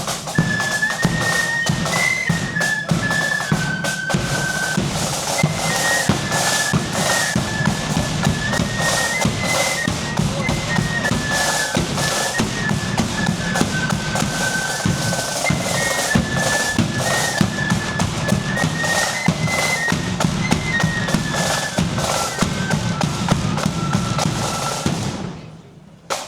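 Marching flute band playing a tune, a high melody stepping from note to note over snare drums and a heavy bass drum. It fades away near the end.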